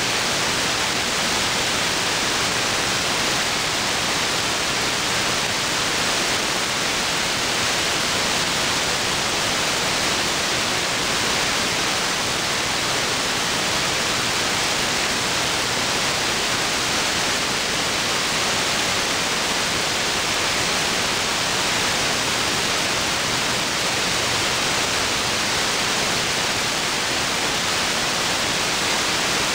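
Steady hiss of receiver static from an SDRplay RSP1 software-defined radio in AM mode, tuned to a quiet aircraft-band air traffic control channel between transmissions.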